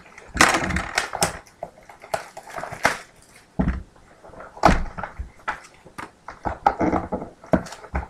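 Trading-card packaging and cards being handled on a table: irregular knocks and thuds mixed with short rustling and scraping, some knocks with a dull low thud.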